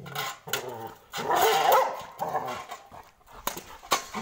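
Labrador growling and snarling in angry-sounding play while it mouths a steel plate, with a loud rough outburst about a second in. The metal plate clicks and scrapes against the concrete floor several times.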